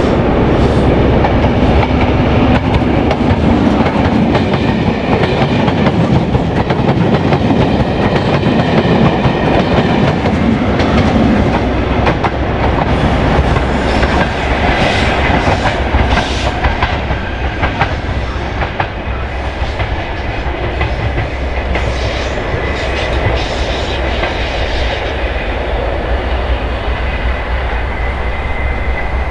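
HST test train with Class 43 diesel power cars passing through at speed: engine noise and a low rumble with wheels clicking over the rail joints. It is loudest for the first dozen seconds, then fades as the train draws away.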